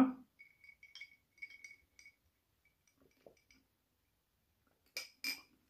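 A drinking glass with ice in it clinking lightly and ringing as it is handled and sipped from, with two sharper clinks near the end.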